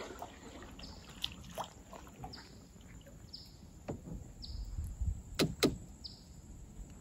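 Small paddle boat on the water: a few knocks against the hull, two close together about five and a half seconds in, over low water noise. A bird repeats a short falling call about once a second.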